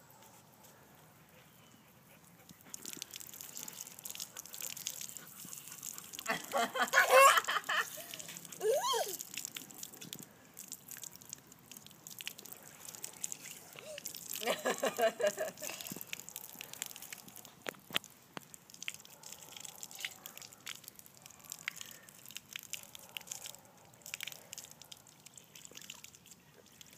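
Water trickling and spattering from a garden hose onto wet concrete, with a toddler's voice loud twice, about six and fourteen seconds in.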